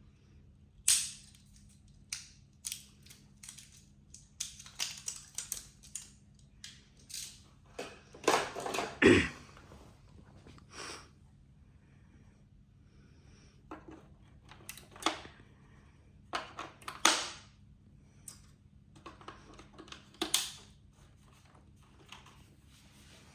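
Irregular clicks, taps and rustles from a typewriter-style keyboard and its packaging being handled during unboxing, with a longer, louder scraping rustle about eight seconds in.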